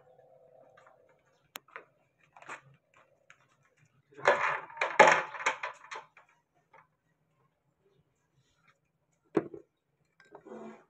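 Metal parts of a dismantled compressor intake valve being handled on a workbench: a few light clicks, then a clatter of metal on metal lasting about two seconds, a single sharp knock about nine seconds in, and a short rattle near the end.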